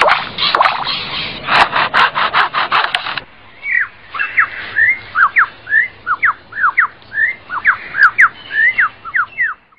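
Lyrebird mimicking a chainsaw: a rasping, pulsing buzz for about three seconds, then a quick run of sharp whistled notes sliding up and down that ends abruptly.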